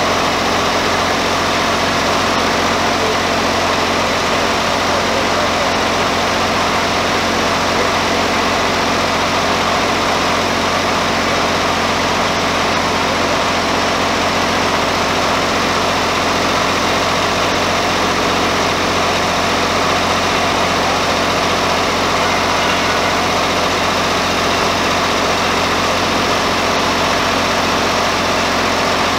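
Swaraj 735 tractor's diesel engine running steadily at an even speed, with no revving.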